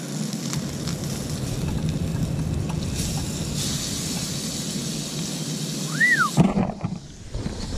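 Lingcod fillet sizzling in butter in a cast-iron pan as it is turned over, over a steady low rumble. Near the end comes a short whistled note that rises and falls, then a loud thump.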